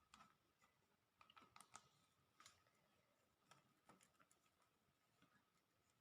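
Near silence with a few faint, scattered clicks and taps: a tripod being handled and adjusted.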